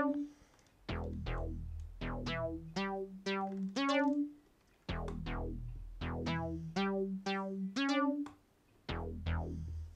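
Synthstrom Deluge groovebox playing back a synth sequence: short pitched notes that fade quickly, over a bass line. The pattern runs about four seconds and repeats, with a brief pause before each restart.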